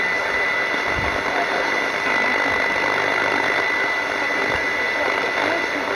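Shortwave radio reception of a jammed broadcast: dense, steady static hiss with a steady high whistle of a jamming tone running through it, the station's voice barely traceable underneath.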